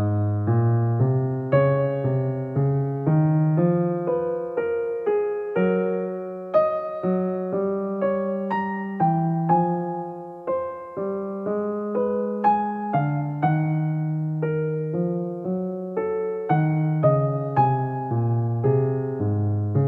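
Calm solo piano background music, single notes and chords struck at an even pace, each one ringing and fading.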